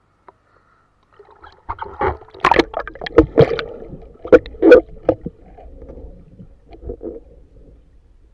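Water splashing and gurgling around a camera as a snorkeling spearfisher goes under with the speargun, with a string of sharp knocks. It is loudest from about two to five seconds in and then fades.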